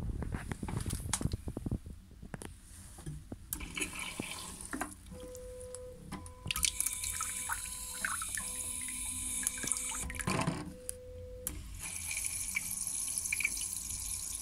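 TOTO Washlet PM bidet nozzle extended and spraying water into the toilet bowl: a hissing spray with a steady whine. After a short pause, water starts running from under the seat into the bowl. A few knocks and thumps come in the first two seconds.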